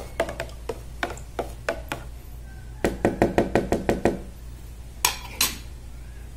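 A metal spoon stirring nutrient solution in a plastic pitcher, its bowl clicking against the pitcher's sides in quick regular knocks that speed up about three seconds in. Two louder knocks follow about five seconds in.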